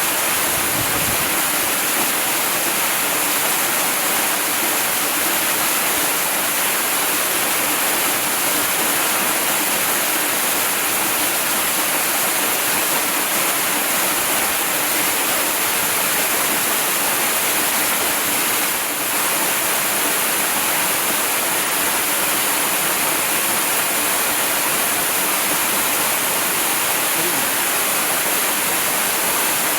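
Waterfall: a steady, unbroken rush of falling water, a dense hiss weighted toward the high end.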